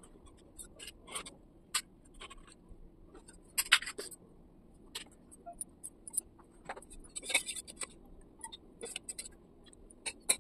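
Stainless steel utensils clinking and scraping: an idli-stand plate and a spoon knocking against a steel plate as steamed idlis are turned out, in scattered short clicks and scrapes. The loudest come about three and a half seconds in and again around seven seconds.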